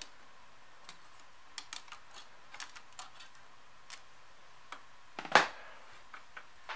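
Light scattered clicks and taps of a VGA cable connector being handled and fitted inside an Amiga 2000's case, with one louder clack a little over five seconds in.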